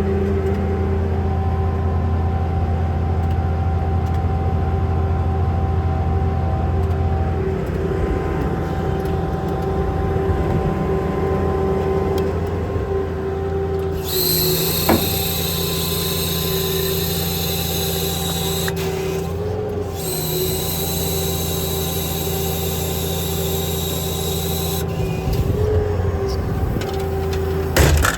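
Hydraulic air compressor on a truck's service body running with the diesel engine: a steady low mechanical hum with a steady tone over it. About halfway through, a loud hiss of air comes in for roughly ten seconds, breaking off briefly in the middle.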